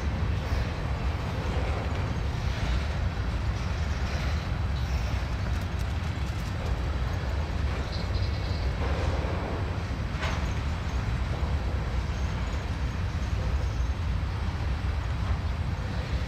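Freight train of Norfolk Southern covered hopper cars rolling past, a steady rumble of steel wheels on rail. A brief high squeal comes about eight seconds in and a single clank about two seconds later.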